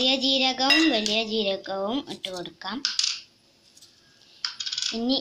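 A person's voice without clear words, then two short dry rustles of cumin seeds shaken from a plastic container onto chopped vegetables in a pressure cooker.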